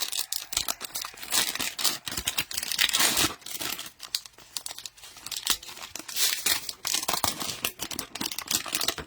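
Cellophane wrappers of trading card packs being torn open and crinkled, in repeated bouts of crackling.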